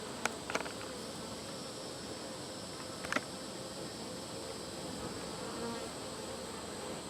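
Honeybees buzzing around a hive entrance in a steady hum as foragers fly in with pollen, with a few sharp taps in the first second and one about three seconds in.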